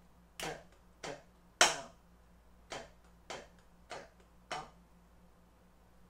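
Drumsticks striking a practice pad slowly, one stroke at a time: seven strokes, the third much the loudest. It is an accented down stroke among light taps, a 16th-note accent pattern with double strokes played out stroke by stroke.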